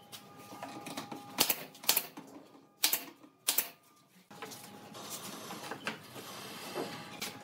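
Pneumatic nail gun firing four sharp shots over about two seconds, driving nails into pine slats, followed by a quieter steady hiss.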